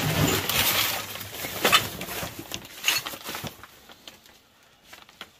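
Old items being handled while rummaging through boxes: rustling with a few sharp knocks and clicks, dying away near the end.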